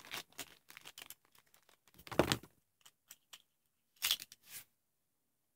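Packaging crinkling and tearing in short bursts, the loudest about two seconds in and two more around four seconds in.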